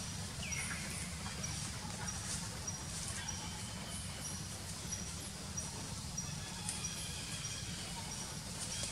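Outdoor ambience: a steady low rumble under a short, high chirp that repeats about twice a second, with a brief falling squeak about half a second in and a few faint clicks.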